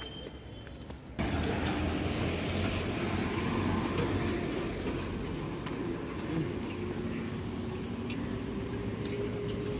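Road vehicle engine and traffic noise, a steady rumble with a low hum and a faint, slowly rising engine tone, cutting in abruptly about a second in.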